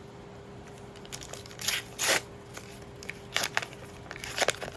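Trading-card booster-pack wrapper crinkling and cards rustling as they are handled, in a few short bursts, the loudest about two seconds in.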